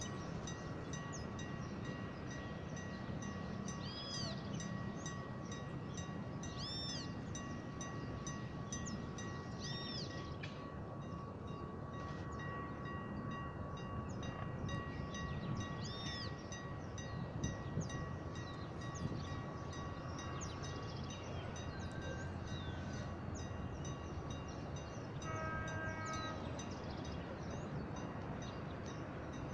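Small birds chirping repeatedly over a low, steady distant rumble. Near the end, the horn of the approaching EMD GT22CW diesel locomotive sounds briefly in the distance.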